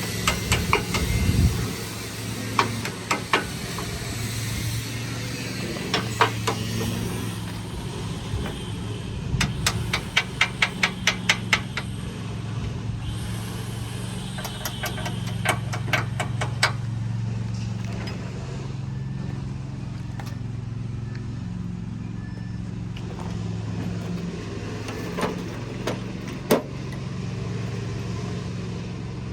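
Kubota tractor's diesel engine idling steadily, with runs of rapid sharp clicks about ten and sixteen seconds in and a few single knocks.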